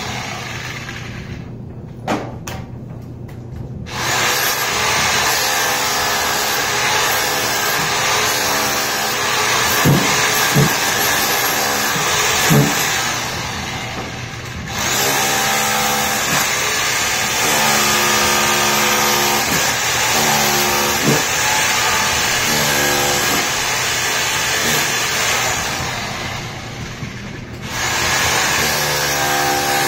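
SDS hammer drill with a chisel bit hammering carpet tack strip nails out of a concrete floor, running in long bursts that stop briefly three times, with a few sharp knocks near the middle.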